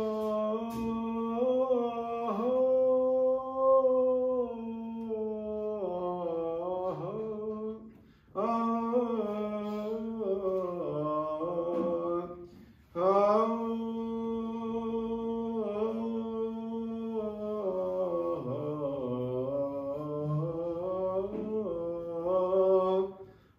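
Solo male voice chanting Orthodox Byzantine chant in Greek, in long held, ornamented phrases. There are short breaks for breath about eight and thirteen seconds in, and again near the end.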